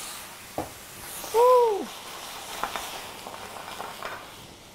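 Pan of food sizzling hard as it flares up in a flambé over a high flame, with a few light clicks of the pan and utensils. About a second and a half in, a short loud tone slides up and then down.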